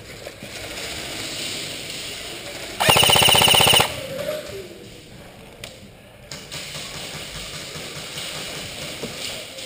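Airsoft rifle firing one rapid full-auto burst of about a second, about three seconds in.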